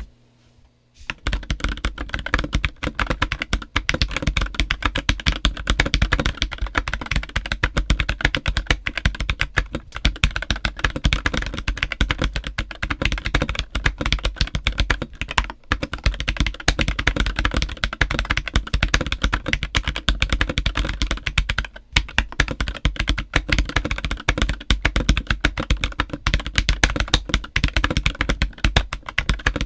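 Fast continuous typing on an MK870 mechanical keyboard fitted with a polycarbonate plate, Akko PCB-mounted stabilizers, JWK Black switches and DCX keycaps: a rapid stream of key clacks that starts about a second in, after a brief silence, with a couple of short pauses.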